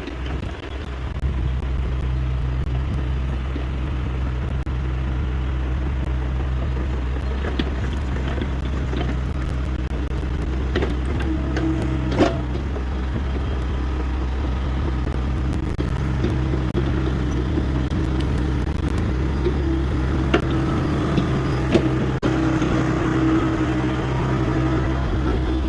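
Hyundai 85A excavator's diesel engine running steadily at working speed, with a higher whine that comes and goes in stretches and a few sharp knocks.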